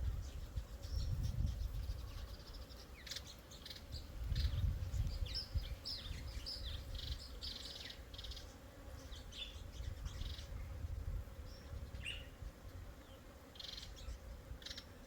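Garden birds chirping and calling in many short, high notes, with a low rumbling noise underneath that swells about a second in and again around four to five seconds in.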